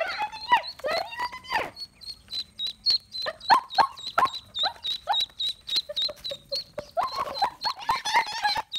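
A group of domestic ducklings peeping: many short, high, repeated peeps, overlapping one another.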